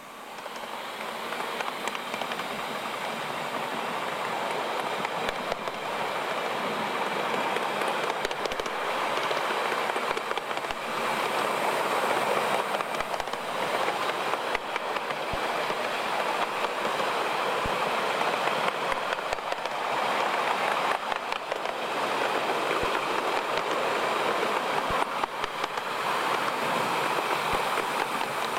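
Miniature steam tank locomotive 5806 and its train pulling away and running along the track, heard from on board. The running noise builds over the first couple of seconds, then holds steady, with scattered sharp clicks from the wheels over the rail joints.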